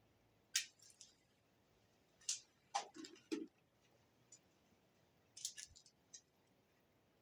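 Scattered short, sharp clicks and light knocks in three small clusters, the middle cluster with a couple of duller knocks.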